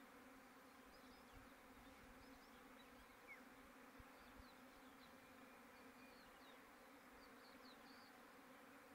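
Faint, steady buzzing hum of many bees, active after rain.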